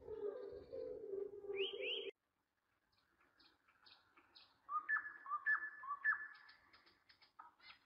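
Birdsong: a bird gives short, sharp, swooping calls, repeated several times less than a second apart, over faint high chirps. Before that, a different sound with a steady low tone and a rising whistle cuts off suddenly about two seconds in, followed by a brief silence.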